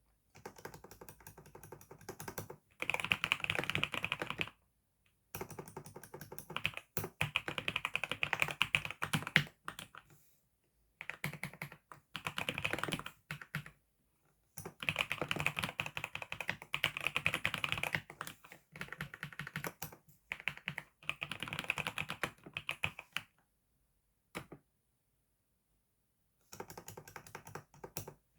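Typing on a computer keyboard: fast runs of keystrokes in bursts of a few seconds, broken by short pauses, with a longer lull of about three seconds near the end.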